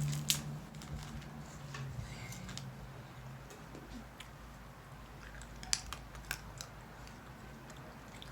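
Peanut shells being cracked open by hand: scattered small crackling clicks, with two sharper snaps a little past halfway.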